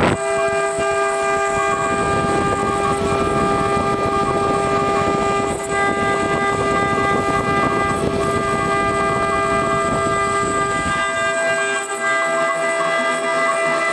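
CNC engraving router's spindle whining at a steady pitch over the hiss of the cutter engraving brass; about eleven seconds in, the lower rumble drops away while the whine carries on.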